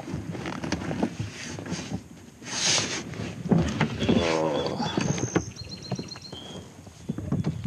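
Knocks, clunks and scrapes of a plastic sit-in kayak and fishing gear as a person climbs out onto a gravel shore, with a short falling pitched creak about four seconds in.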